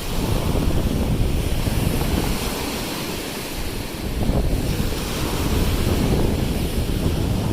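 Lake Erie waves breaking and washing up a sand shore, a steady rushing surf, with wind buffeting the microphone in low rumbles.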